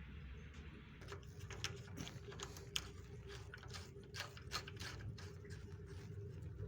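Irregular light clicks and ticks, dozens of them, over a faint steady hum.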